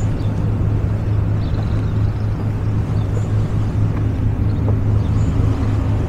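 Steady low engine rumble with a constant hum, with faint short high chirps every couple of seconds.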